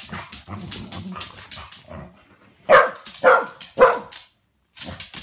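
Dogs playing rough: scuffling and low play noises, then one of them gives three loud barks in quick succession, a little more than halfway through.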